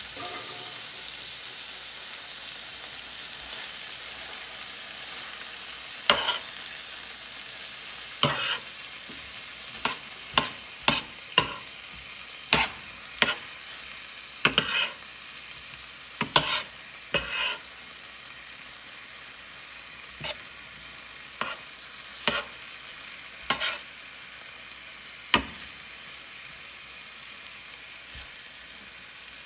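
Beef strips, bell peppers and red onion sizzling steadily in a stainless steel pan as they are stir-fried. From about six seconds in, a slotted metal spatula scrapes and clinks against the pan at irregular moments, its strikes the loudest sounds.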